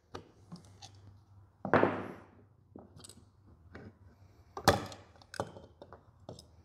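Screwdriver prying at the housing plate of a Ford scroll A/C compressor: scattered metal clicks and scrapes, a longer scrape about two seconds in and a sharp knock near five seconds as the housing comes apart.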